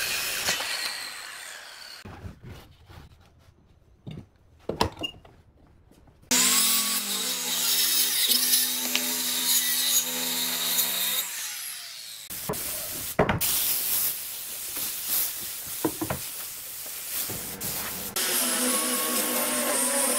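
Maktec circular saw cutting through a thick wooden board in several passes, broken by a quiet stretch of a few seconds with some clicks. About 18 s in, a different motor starts: a small angle grinder with a sanding disc running on the wood.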